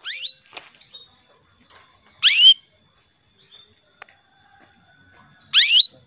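Female canary calling: three short rising whistled call notes, one at the start, one about two seconds in and one near the end, the later two loudest. This is the hen's call to a male canary.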